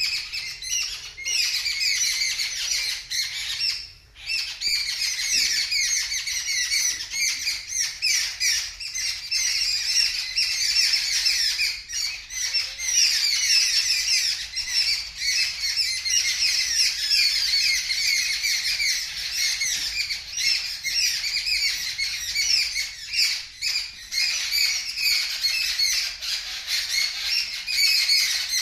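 A flock of birds screaming loudly: a dense, continuous chorus of short, shrill chirps and squawks, many birds calling at once. The uploader takes this for birds screaming at a kitten.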